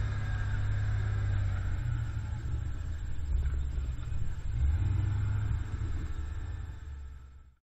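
Vintage Dodge Power Wagon truck engine running as the truck drives along: a steady low rumble that swells briefly midway and fades out near the end.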